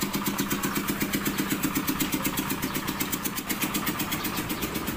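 A small engine idling steadily, with an even throb of about ten beats a second.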